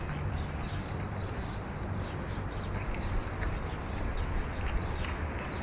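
Small birds chirping in quick, repeated short calls over a steady low hum.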